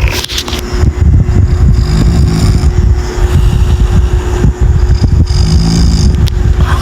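A person snoring loudly: a rough, rattling snore that swells with each breath, about every three and a half seconds.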